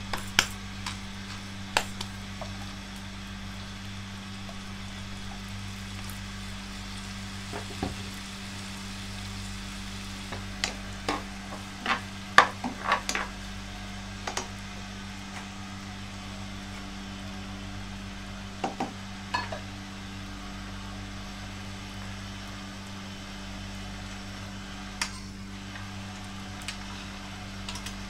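Diced pork frying in a non-stick pan over a steady low hum, stirred with a wooden spatula: sharp clacks and scrapes come in short clusters, the busiest a little before the middle.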